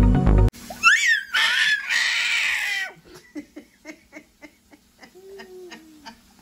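A child's high-pitched squeal and shriek, rising and falling in pitch, after music cuts off about half a second in. It is followed by a string of short, quieter giggles a few times a second.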